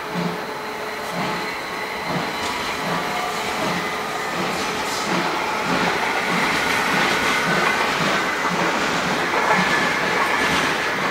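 HR1 steam locomotive rolling slowly toward the listener, with a regular low beat over steady rumble and hiss. The beat quickens from about one a second to about two a second, and the sound grows a little louder as it nears.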